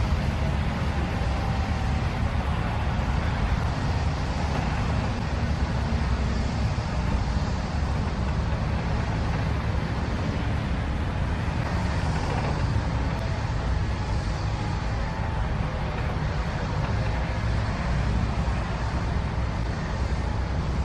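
Bell 407 helicopter on the ground with its main rotor turning and slowly running down: a steady low rumble that eases off slightly toward the end.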